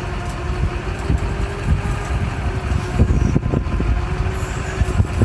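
Warn electric winch pulling the dead skid steer under load, a steady whine over a low rumble.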